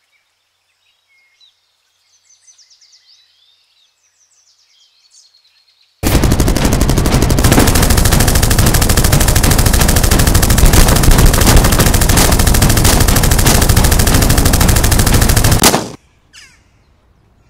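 Faint bird chirps, then, about six seconds in, loud and continuous automatic gunfire from several guns firing together, a dense rattle of shots for about ten seconds that cuts off sharply.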